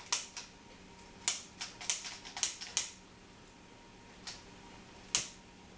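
Handheld lighter clicking over a skillet: a run of sharp clicks in the first three seconds, then one more near the end. These are attempts to relight the whiskey flambé, which no longer catches because the alcohol is spent.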